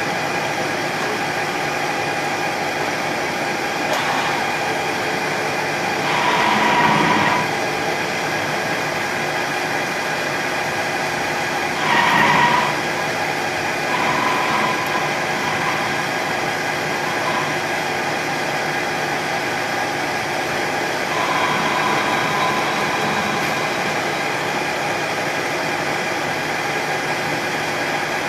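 Lathe running steadily with a machine whine while its tool takes cuts on a shift knob to true it up. The cutting gets louder, with a high ringing tone, about six seconds in and again about twelve seconds in, with lighter spells later.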